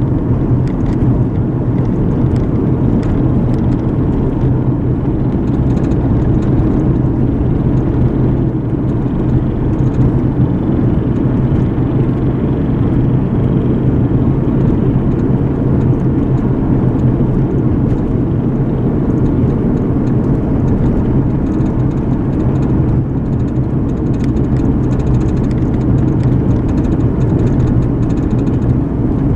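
Car driving steadily, heard from inside the cabin: a constant low rumble of engine and tyres on the road.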